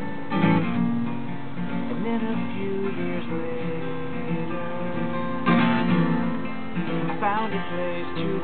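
Two acoustic guitars strummed together, playing a song's instrumental intro, with heavier accented strums about half a second in and again about five and a half seconds in.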